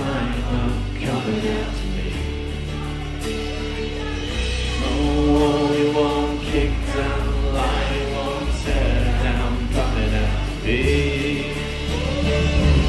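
Live worship band playing a contemporary worship song: a male lead singer with an acoustic guitar, backed by drums and a steady bass line.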